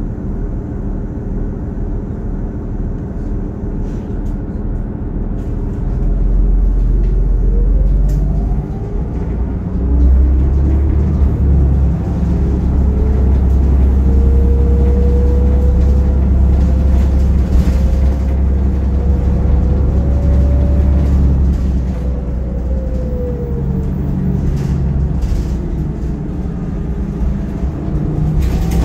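New Flyer DE41LFR hybrid bus with a Cummins ISL diesel and Allison EP-40 hybrid drive under way. A low rumble grows stronger about a third of the way in. A whine rises in pitch several seconds in, keeps climbing slowly as the bus picks up speed, then falls away about two-thirds through as it slows.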